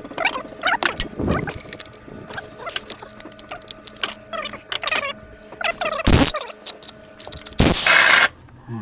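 Ratchet with an 18 mm swivel socket clicking in short runs as bolts are worked loose, with a sharp knock about six seconds in and a loud half-second burst near the end.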